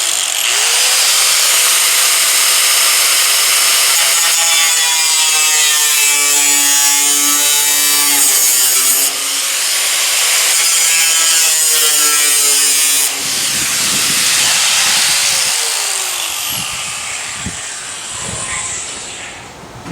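Power cutting tool cutting through the sheet-steel hood of a 1965 Ford F100 to remove a rust hole: a steady, loud hissing cut, with the motor's pitch wavering under load. Near the end the tool's pitch falls away and the sound fades as it spins down.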